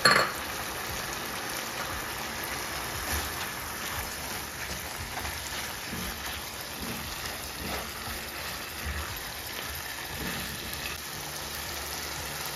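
Goat meat wet fry sizzling steadily in a pan, an even hiss with a few faint pops. There is a brief clatter right at the start.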